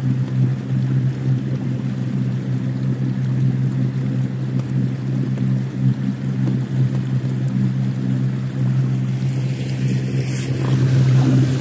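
Outboard motor driving an inflatable boat at a steady speed: a constant low hum, with water and wind noise along the hull that swells a little near the end.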